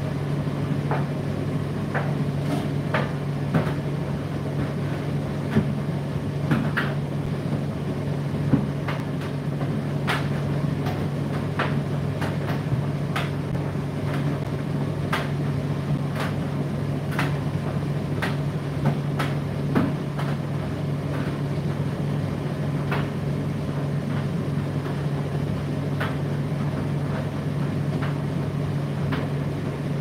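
Indesit IDC8T3 condenser tumble dryer running: a steady low hum from the motor and turning drum, with irregular light clicks and knocks from the tumbling load.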